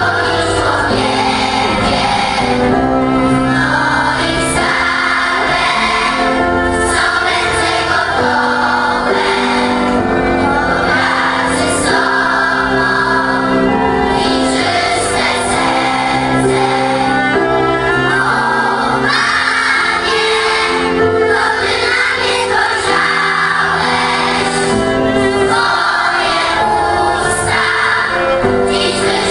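Music: a choir singing, with many voices holding notes together.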